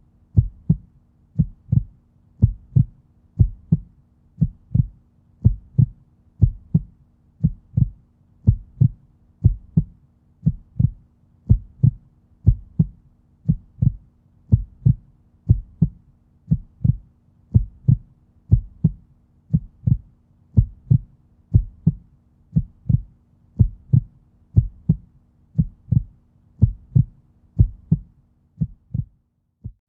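Human heartbeat: a double lub-dub thump repeating steadily at about one beat a second.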